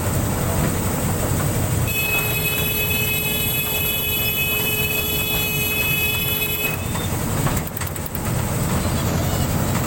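Ride-on toy train running with a steady rumble. From about two seconds in, a steady high-pitched tone sounds for about five seconds, then stops.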